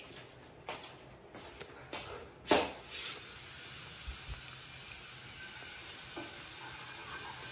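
A few light knocks and a louder clunk about two and a half seconds in, then a faint steady sizzling hiss of food frying in a pan.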